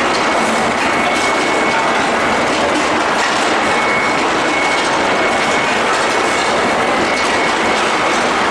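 Steel ball hot rolling line with an induction bar-heating furnace running: a loud, steady mechanical din, with a thin high tone that comes and goes.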